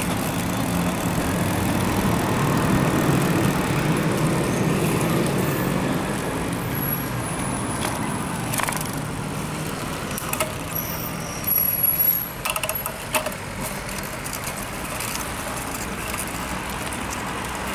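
Steady rushing noise of a bicycle ride, from wind and tyres. A few sharp clicks and knocks come through, most of them a little past the middle.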